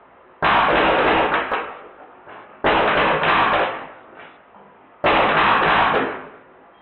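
Drozd Blackbird electronic BB gun, run on a high-pressure air tank with a Sergey board, firing three full-auto bursts of about a second each, a couple of seconds apart, with the BBs smacking into a popsicle-stick and plastic-toy target. Each burst starts abruptly and tails off.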